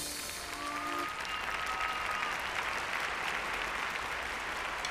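Theatre audience applauding, a steady dense clapping.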